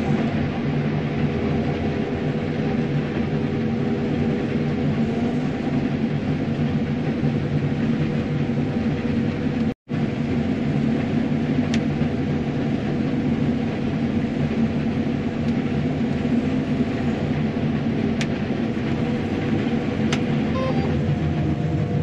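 John Deere combine running steadily while cutting soybeans, heard from inside the cab as an even engine and threshing drone with a steady hum. The sound cuts out for an instant about ten seconds in.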